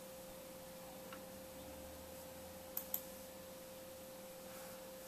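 Faint steady electrical hum and hiss, broken by a quick double click of a computer mouse about three seconds in.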